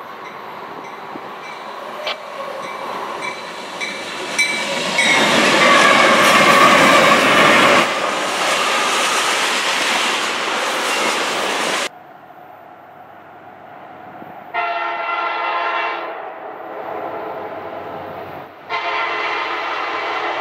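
A freight train passing: the locomotive approaches and goes by, loudest about five to eight seconds in, then a string of tank cars rumbles and clacks over the rails. The sound then cuts abruptly to a quieter scene where an approaching diesel locomotive sounds its horn in two long blasts.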